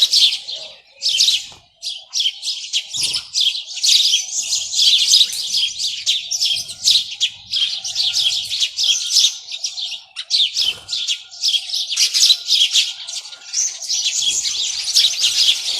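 A flock of small birds chirping, many calls overlapping in a dense, continuous high-pitched chatter.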